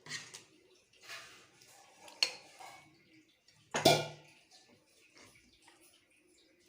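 Metal kitchen utensils knocking and scraping against a cooking pot: a handful of separate strokes and a sharp clink, the loudest a ringing knock just under four seconds in.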